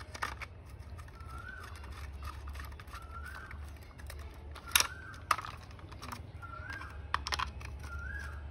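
Small screwdriver clicking against the screws and plastic of a toy car's underside as the screws are tightened. Behind it a bird gives a short rising-then-falling call about every second and a half, over a steady low hum.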